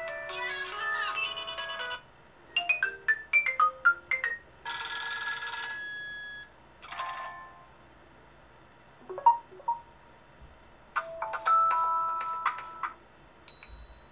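A Nokia Lumia 1020 smartphone playing its stock ringtones and alert tones, one short tone after another. There is a melodic chime, a quick run of plinking notes, a held buzzy chord, a few brief blips and a fading chord, each followed by a short pause.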